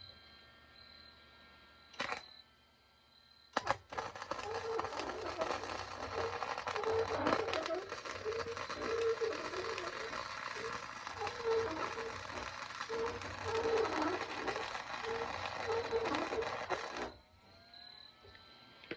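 Arc welder laying a bead on a seam: after a couple of short clicks, the arc strikes about four seconds in and runs as a steady crackling sizzle with a pulsing hum, then cuts off suddenly near the end.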